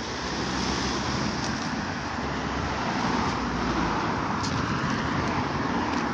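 Road traffic passing on the street: tyre and engine noise that swells over the first second, holds, and eases off near the end.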